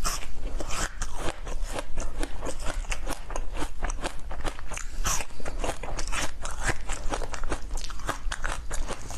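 Close-up crunching and chewing: a person biting into and eating a large yellow slab of food studded with black seeds, with many sharp crackling crunches a second.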